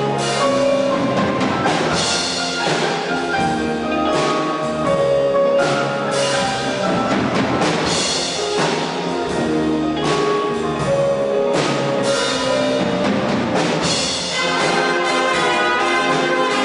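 Live big band playing: a saxophone section, trumpets and trombones in sustained full-band chords, with piano and drum accents.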